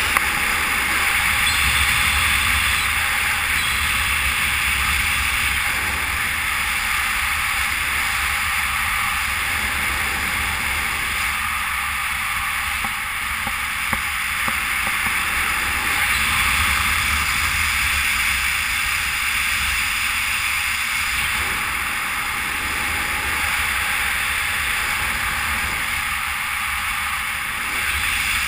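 Wind rushing over a head-mounted camera's microphone in fast speedflying flight: a steady hiss with a low rumble underneath, swelling and easing slightly.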